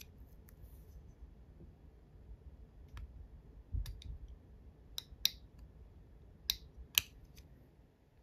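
Small sharp clicks of metal tweezers touching the wire spokes and hub of a 1/12 scale model motorcycle wheel, a handful of them scattered mostly through the second half, with one soft low bump from handling the wheel.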